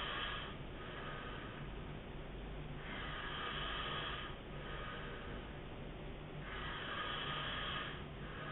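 A man snoring heavily in his sleep: a steady rhythm of rasping breaths, a louder one about every three and a half seconds with a softer breath between.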